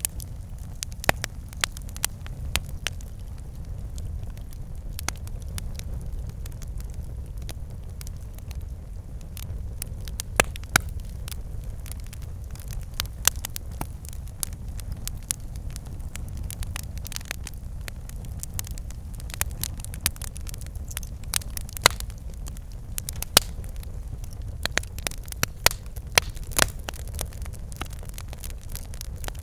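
Campfire burning, wood crackling with frequent sharp pops over a steady low rumble of the flames.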